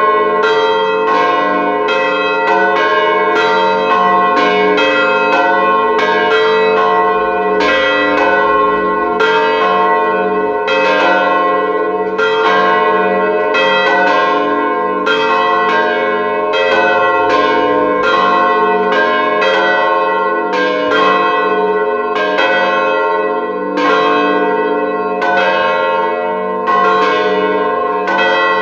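Three swinging church bells ring together: 900 kg in F, 500 kg in A-sharp and 350 kg in C. Their strokes overlap in a continuous clangour over a held hum. The peal is rung fifteen minutes before mass, as the call to the service.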